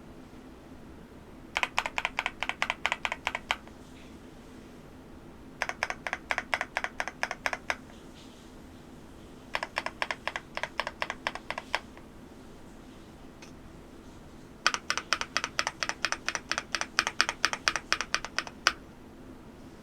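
Stabilized keys of an MCHOSE GX87 aluminium tenkeyless mechanical keyboard pressed quickly and repeatedly in four runs, several clacks a second, as a stabilizer sound test. The last run is the longest, about four seconds.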